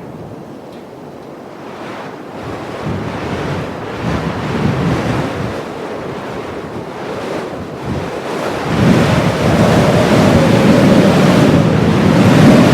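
Blizzard wind gusting, the rush swelling over several seconds and getting much louder about nine seconds in, where a faint whistling howl rises above the rush.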